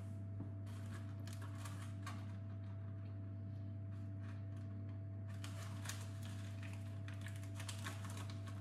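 Steady low electrical hum with a faint higher tone over it, and many small soft clicks and rustles of handling things by a saucepan of chocolate pieces on an induction hob.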